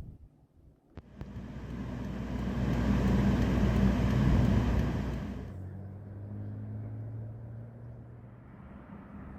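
A motor vehicle passing close by, its rush and rumble swelling to a peak and then cutting off suddenly, followed by a quieter steady engine hum that slowly fades.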